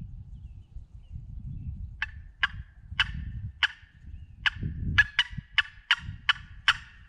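Turkey yelping: about eleven short, sharp notes, spaced out at first and coming quicker in the second half.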